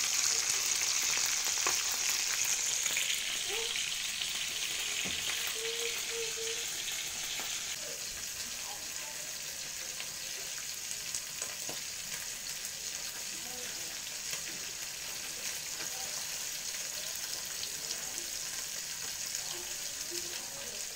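Mackerel pieces frying in hot oil in a pan: a steady sizzle with fine crackling and spitting. It is loudest at first and eases off over the first several seconds, then holds steady.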